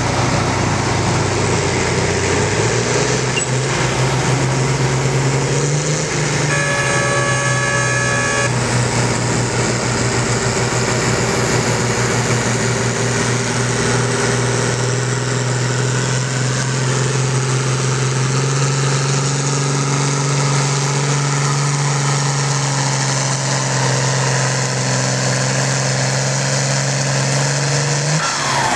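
John Deere farm tractor's diesel engine working at full throttle under load as it drags a weight-transfer sled, its steady note stepping up twice early on and dropping away near the end as the pull stops. A horn sounds for about two seconds several seconds in.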